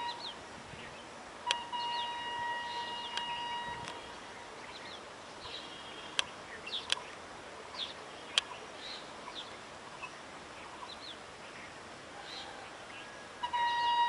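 WDM3A diesel-electric locomotive horn sounding one steady held blast of about two and a half seconds, starting about a second and a half in, and a second blast starting near the end. Birds chirp in between, with a few sharp clicks.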